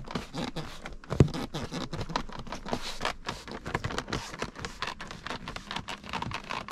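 Plastic side trim at the base of a BMW X5 F15's front seat creaking and crackling as a hand presses and works it: a dense run of irregular clicks, with one sharper crack about a second in. The trim is loose and badly fitted, and the owner says it makes such noises all the time.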